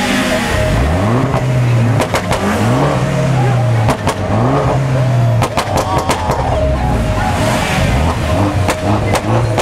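Car engines revving again and again, each rev rising in pitch and then holding, over crowd voices. Clusters of sharp pops come about two seconds in, around the middle, and near the end.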